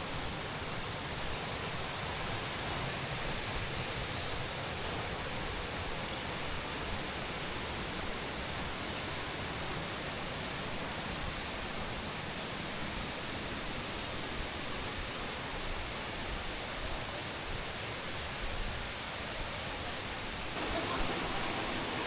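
Steady rush of falling and flowing water from the El Chiflón waterfall and its river, an even hiss that grows slightly louder near the end.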